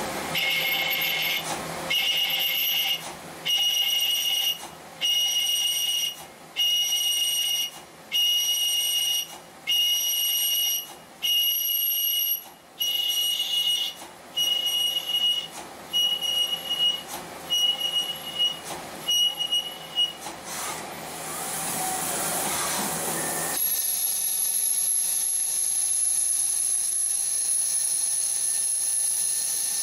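CNC lathe cutting a brass workpiece: a high-pitched whine from the tool in the cut comes in repeated short bursts about every second and a half, each a little shorter than the last. After about twenty seconds it gives way to a steady hiss with a thin, very high whistle.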